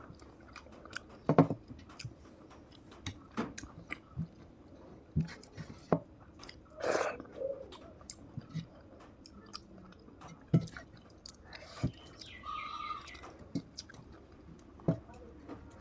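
A person chewing a mouthful of rice with fish and lentil dal, with wet mouth clicks and smacks at irregular moments, a few of them sharper and louder.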